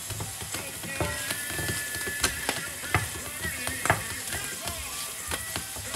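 Food frying in a pan, a steady sizzle with many sharp clicks of a utensil stirring and scraping, with background music underneath.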